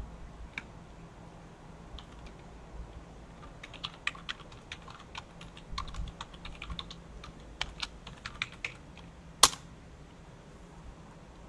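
Typing on a computer keyboard: a few scattered keystrokes, then a quick irregular run of key clicks, ending with one much louder single keystroke about nine seconds in.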